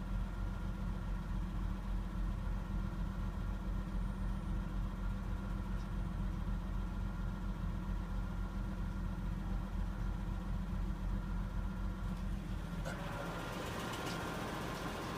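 Nissan RB20E straight-six idling after about five minutes of warm-up, with its hydraulic lifters still knocking. About 13 seconds in the low engine note weakens and a steady hiss takes over.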